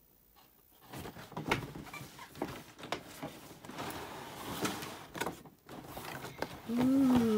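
A cardboard box lid is lifted off and its inner cardboard flaps are folded open, with scattered taps, scrapes and rustling. Near the end comes a short exclamation that rises and then falls in pitch, louder than the handling.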